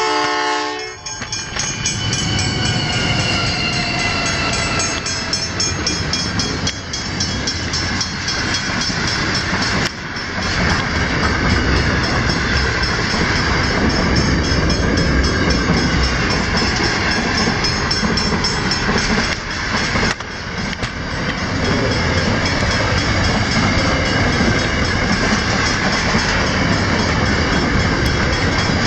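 A diesel-hauled container freight train passes a level crossing: a short horn blast at the start, then the steady heavy rumble and clatter of the wagons running over the rails.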